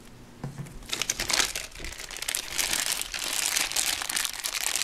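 Crinkling and rustling of plastic as a Play-Doh tub is opened by hand, growing denser from about a second in.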